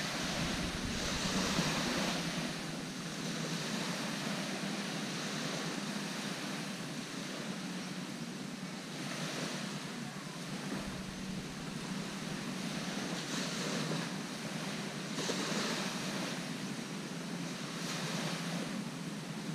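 Small waves washing onto a sandy shore, each wash a swell of hiss every few seconds, with wind buffeting the microphone now and then and a faint steady low hum underneath.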